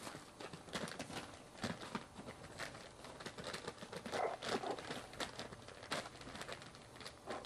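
A Chihuahua puppy's paws scampering and scrabbling on a fabric blanket: irregular soft taps and scratchy rustles, with a louder flurry about four seconds in.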